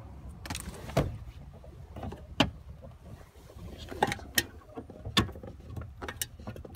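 A series of sharp plastic clicks and knocks, about seven in all, as an OBD2 scanner's cable connector is handled and pushed into a truck's diagnostic port under the dashboard.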